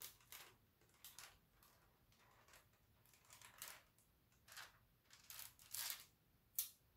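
Faint crinkling and rustling of the clear plastic film covering a diamond painting canvas as hands lift it and smooth it down, in about eight short bursts with a sharper crackle near the end.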